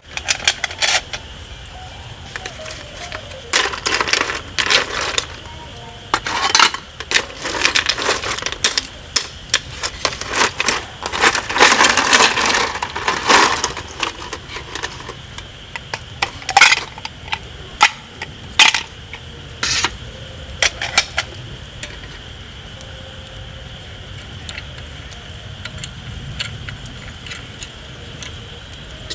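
Metal camp cookware and utensils clinking and clattering as they are handled, in irregular bursts that are busiest in the first half.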